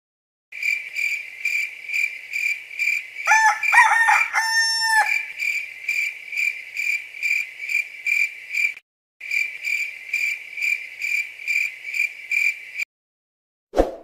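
Crickets chirping in a steady pulse, about two or three chirps a second, with a rooster crowing loudly a few seconds in, ending on one long held note. The chirping breaks off briefly after about nine seconds, stops about a second before the end, and a short thump follows.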